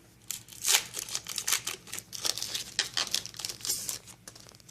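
Foil wrapper of a Yu-Gi-Oh booster pack crinkling in quick, irregular bursts as the pack is handled and opened, dying down near the end.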